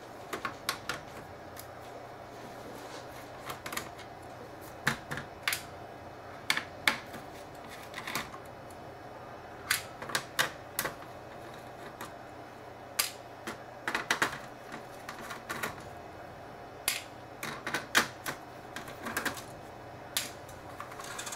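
Irregular sharp clicks and taps, often in quick clusters of two to four, from a screwdriver backing small screws out of a laptop's metal top panel and the screws being put into a small plastic pot.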